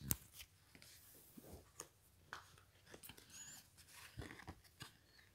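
Faint handling of playing cards: soft rustles and scattered light clicks as cards are sorted in the hand and laid down on a cushion, with one sharper tap right at the start.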